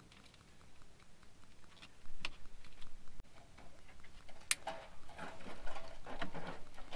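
Hands working a bundle of vehicle wiring up against a wire loom: light ticks and rustling of wires and plastic, with a sharp click a little after two seconds in and a louder one about four and a half seconds in, then a busier stretch of rustling handling noise.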